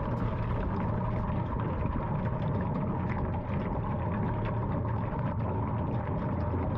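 Water from a garden hose spray nozzle rushing steadily into a hand-hammered copper sink, with a low rumble and small splashes as the sink fills.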